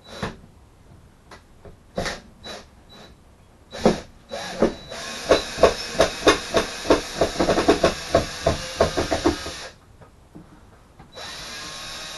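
Power drill-driver running at a ceiling light fixture, backing out its mounting screws, with a rapid run of clicks about four a second through the middle. A few sharp knocks come first, and the drill runs again near the end.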